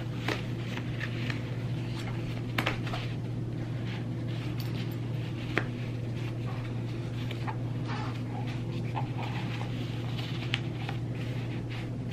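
Handling noise from a neoprene stock guard and foam cheek pad being worked onto a rifle buttstock: soft rustling with scattered light clicks, over a steady low hum.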